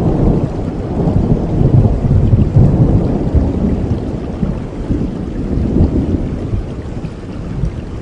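A long roll of thunder over steady rain, loudest about two to three seconds in and dying away near the end.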